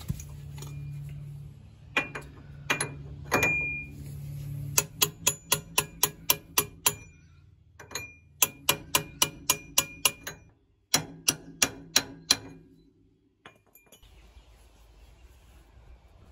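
Hammer blows on a 55 mm socket and extension bar, driving a new rear axle oil seal into a Suzuki Jimny's axle housing. A few single ringing metallic strikes come first, then quick runs of taps at about four a second.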